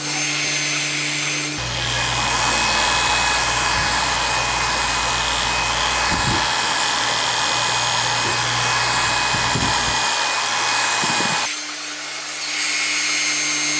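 Electric hair clippers running with a steady hum. From about a second and a half in until near the end, the blades are held against the head cutting hair, and the sound turns rougher and fuller. Near the end it drops briefly, then goes back to the plain hum.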